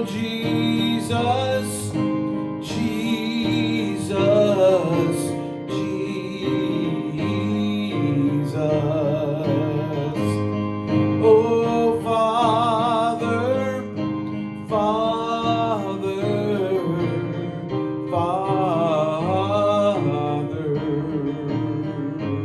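Gospel song continuing with a voice singing long held, wavering notes over steady instrumental accompaniment, with no clear lyrics.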